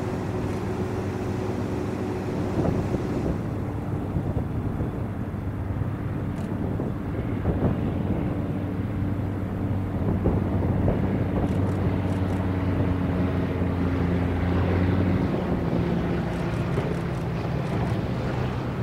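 Single-engine floatplane's piston engine and propeller droning steadily on final approach. About fifteen seconds in the tone shifts lower as power comes back for landing, and a rushing hiss of the floats through the water joins it near the end.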